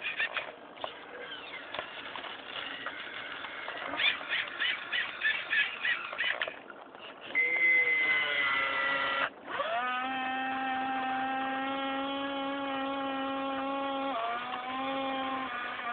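Radio-controlled excavator's small electric motors working: a run of rhythmic squeaks at about four a second, then a steady high whine that breaks off briefly, starts again and drops a step in pitch near the end.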